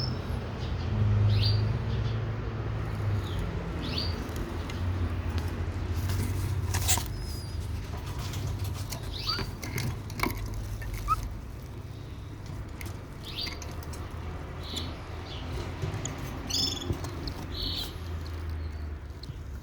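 Week-old cockatiel chick giving short, high peeping chirps every second or so, over a low steady hum with a few scattered clicks.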